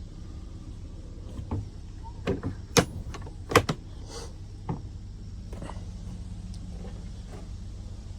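A handful of sharp clacks and knocks, like hard cases, latches or a door being handled, the two loudest a little under a second apart near the middle, over a steady low hum.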